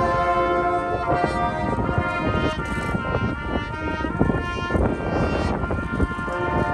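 Marching band playing: brass sustaining chords over drumline percussion hits.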